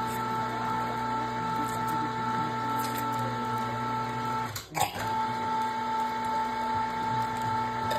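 Electric meat grinder running with a sausage-stuffing tube, pushing ground venison into a casing: a steady motor whine. It cuts out briefly with a click about halfway through, starts again, and stops at the end.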